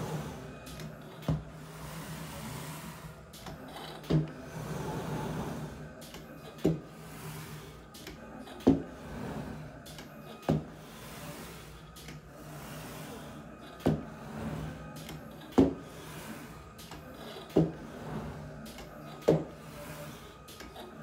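Computerized mat cutter cutting a mat board: the cutting head travels along the gantry with a motor whir over a steady hum, and a sharp clack comes every two seconds or so, about nine in all.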